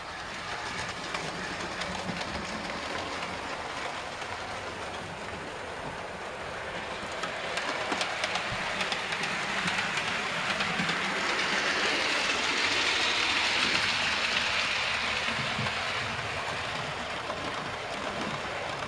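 00 gauge model locomotive and coaches running on the layout's track: a steady whir and rumble of motor and wheels, with clicks over rail joints. It grows louder about halfway through as the train passes close, then eases off.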